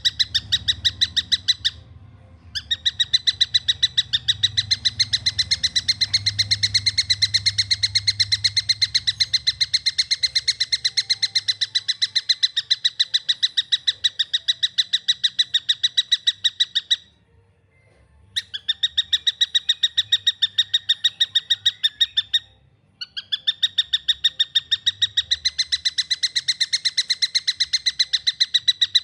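Juvenile tengkek buto calling: long runs of rapid, evenly spaced sharp chirps, roughly eight to ten a second, broken by three short pauses. This is the tightly paced, clear call used as tutoring material for songbirds.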